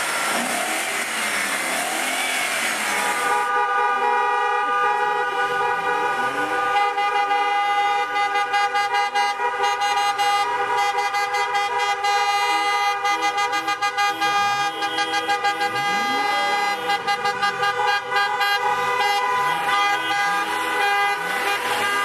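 Several car horns honking together: long held blasts at a few different pitches, broken into rapid repeated toots from about seven seconds in. The first three seconds are a loud rushing noise that cuts off abruptly as the horns take over.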